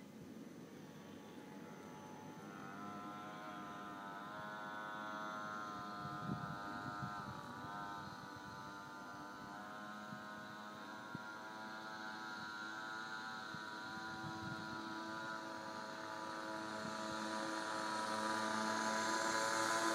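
Pocket bike's small engine heard from far off, growing steadily louder as it approaches. Its pitch dips briefly about seven seconds in, then holds steady.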